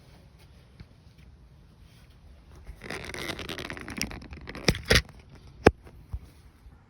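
A scraping, rustling handling noise for about a second and a half, followed by four sharp knocks or clicks.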